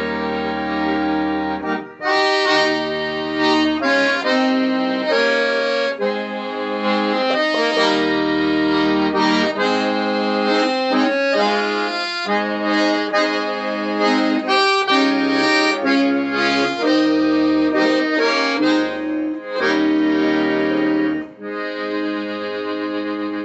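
Two piano accordions playing a duet: a lively melody in chords over intermittent bass notes, settling into one long held chord near the end.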